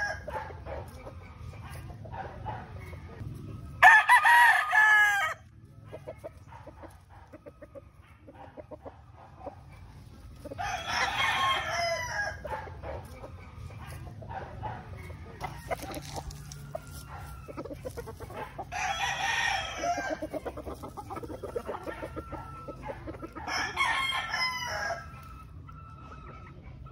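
Gamecock roosters crowing: four long crows a few seconds apart, the loudest about four seconds in. Soft clucking comes between the crows.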